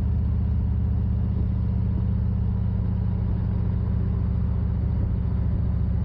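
Motorcycle engine running at a steady, even speed, its low firing pulse heard through a mic under the rider's helmet chin, with wind rushing over the mic.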